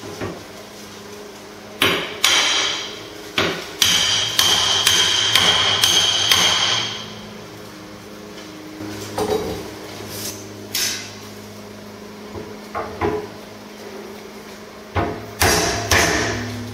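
A hammer tapping wrought-iron balusters down into their holes in the stair bullnose: about fifteen sharp strikes at uneven spacing. There is a quick run of blows with a ringing metallic tone from about four to seven seconds in, and a low steady hum underneath.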